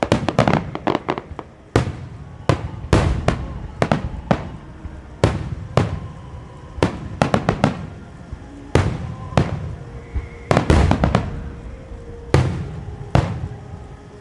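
Starmine fireworks: rapid volleys of aerial shells bursting, with sharp bangs coming in quick clusters separated by lulls of about a second, each bang trailing a rolling echo.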